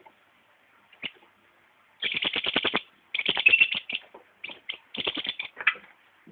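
Green-headed tanager (saíra-sete-cores) singing: a faint tick about a second in, then several bouts of very fast, dry ticking notes, each lasting about a second.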